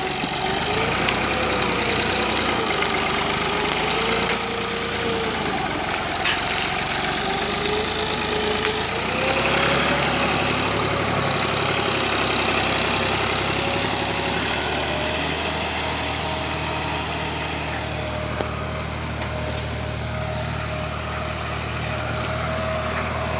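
Fiat 480 tractor's diesel engine running, its speed rising and falling through the first half and then holding steady. A few sharp knocks come over it, the loudest about six seconds in.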